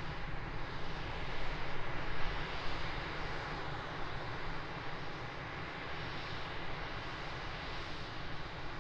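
Antonov An-26's twin Ivchenko AI-24 turboprop engines and propellers running as the plane rolls along the runway after landing, a steady broad roar that slowly fades.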